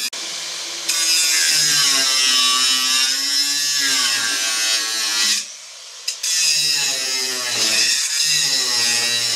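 Angle grinder with a thin cut-off disc cutting through a steel weld, its motor pitch sagging and recovering as the disc is pressed into the cut. Briefly quieter about five and a half seconds in, then cutting again.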